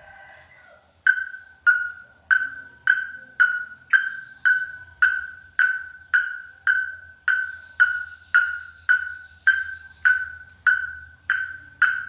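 Greater racket-tailed drongo calling one short note over and over at an even pace, nearly two a second, starting about a second in. Each note starts sharply and fades quickly.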